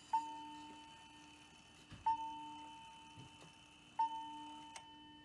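Hamilton bracket mantel clock striking the hour: three strokes about two seconds apart, each a clear ringing tone that fades slowly. They are part of its five o'clock hour strike.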